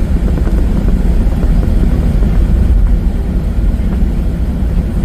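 Jet airliner cabin noise: the engines and rushing airflow make a loud, steady, deep rumble.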